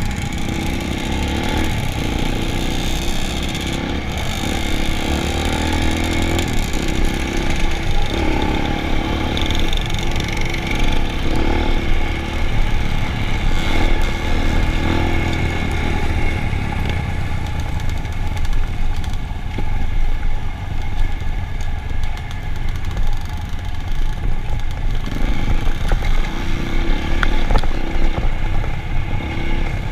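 Motor vehicle engine running continuously at close range, its level rising and falling slightly.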